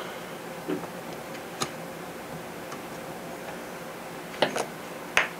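A handful of light clicks and taps from an epoxy brush and small tools being handled at a workbench, spread out, with the loudest one near the end.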